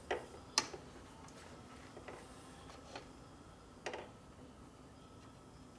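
A handful of light metal-on-metal clicks and taps, about six spread over a few seconds, the sharpest about half a second in: engine parts being handled while a long wrist pin is set in and rocked against the connecting rods to check for a bent or twisted rod.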